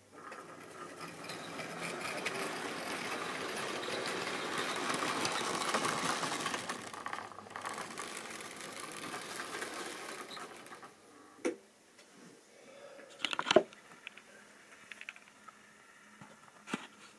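OO-gauge model Class 47 diesel locomotive and train running past on the track: an electric motor whirring and wheels rattling over the rails, growing louder over the first six seconds and fading away by about ten. After it, a few sharp clicks and knocks of the layout being handled.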